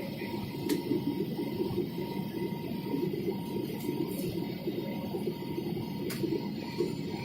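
Steady rumble of an airliner cabin, the noise of the engines and airflow, with a faint steady whine above it. Two faint clicks are heard, one early and one near the end.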